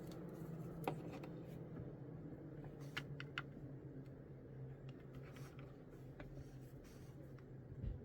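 Small plastic model kit parts being handled and fitted, giving a scatter of light clicks and taps, the sharpest about a second in and twice around three seconds in, over a steady low hum.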